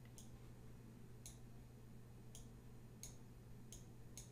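Faint computer mouse clicks, about six at irregular intervals of roughly a second, over a low steady hum.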